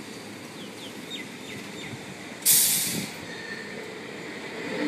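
A sudden sharp hiss of compressed air from a stationary Sydney Trains S set double-deck electric train, about halfway through. It lasts about half a second and fades, over the train's steady low background sound.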